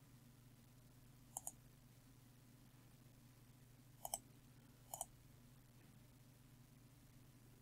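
Three computer mouse clicks, each a quick double tick of press and release: one about a second and a half in, then two close together around four and five seconds in, over a faint steady hum.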